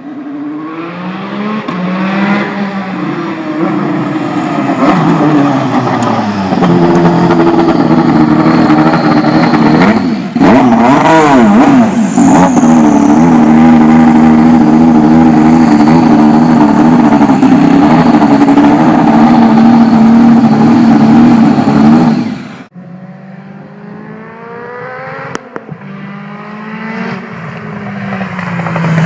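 Turbocharged Peugeot T16 hill-climb race car accelerating hard at full throttle, the engine note rising and dipping through gear changes and building to a loud, sustained run. It drops off abruptly about three-quarters of the way through, followed by a quieter stretch of revs climbing through several quick upshifts.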